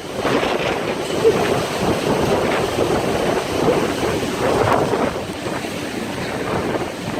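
Strong gusting wind rushing across the microphone, swelling and easing in surges.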